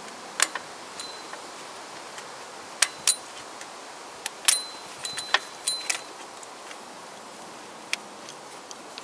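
Wiring harness and plastic connectors being handled and pushed into place in a car engine bay: about eight sharp clicks and clacks at uneven intervals, a few with a brief high ring, over a steady background hiss.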